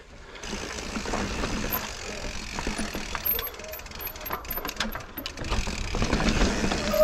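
Mountain bike riding over a rough pebbled singletrack trail: the frame and drivetrain rattle and knock irregularly with the bumps, along with the ticking of the rear freehub as it coasts.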